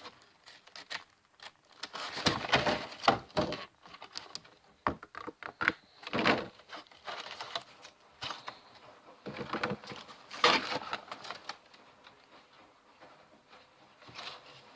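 Packaging and card-box contents being handled: irregular rustling and light clicks and knocks, with a few louder bursts of handling.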